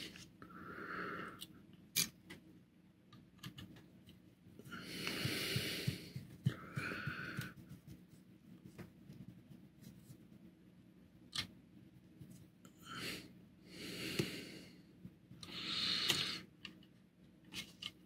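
Quiet bench work: several slow breaths close to the microphone, with a couple of sharp light clicks of a small steel tool against a die-cast toy car.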